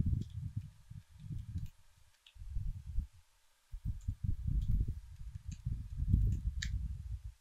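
Computer keyboard being typed on: irregular runs of dull low thumps with faint sharp key clicks, with a short pause about two to three seconds in.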